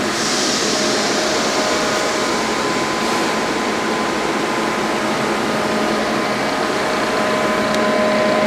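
Mori Seiki Frontier L1 CNC turning center running, a steady machine hum with two steady whining tones. A high hiss fades out over the first couple of seconds.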